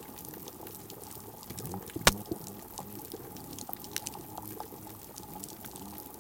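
Underwater hydrophone sound of a reef at night: a constant crackle of scattered clicks from snapping shrimp. About two seconds in comes one much louder, sharp snap, a pistol shrimp (red snapping shrimp, Alpheus armatus) firing its snapping claw.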